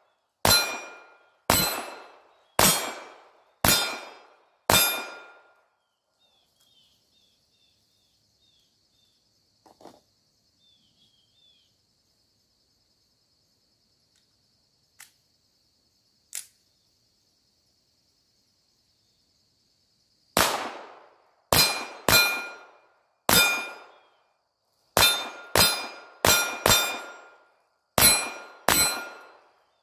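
Ruger Mk IV 22/45 Tactical .22 LR pistol firing: five sharp shots about a second apart, then a pause of about fifteen seconds with a few faint clicks of gun handling. Ten quicker shots follow near the end. Each shot is followed by the ringing clang of a steel gong target being hit.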